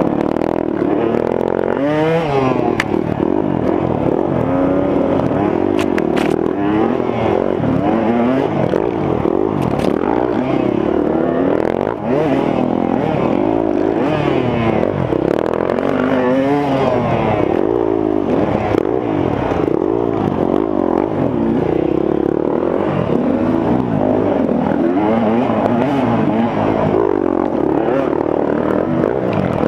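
2015 KTM 200 XC-W's single-cylinder two-stroke engine revving up and down as it is ridden hard off-road, its pitch constantly rising and falling through throttle changes and gear shifts, with occasional knocks from the bike.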